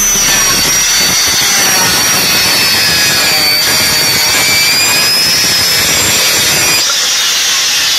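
Bosch 4-inch angle grinder with a wood-cutting blade, under load as it cuts through a wooden board. It makes a loud, steady cutting noise with a high whine that wavers in pitch, and the sound changes near the end.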